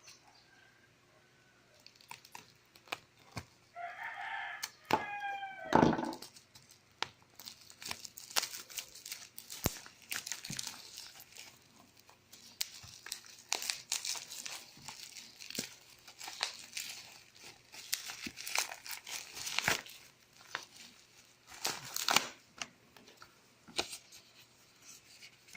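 Plastic and cardboard packaging of a power bank crinkling and tearing as it is handled, in many sharp crackles and rustles. About four seconds in, a rooster crows once, and a knock about six seconds in is the loudest sound.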